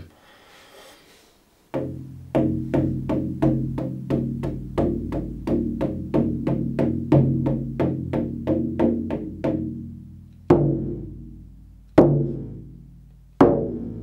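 Large handmade goatskin shamanic frame drum, rope-laced at the back, struck with a wooden beater. A steady beat of about three strokes a second starts about two seconds in and fades off after some eight seconds, then three single, harder strokes follow, each left to ring out in a low resonant tone.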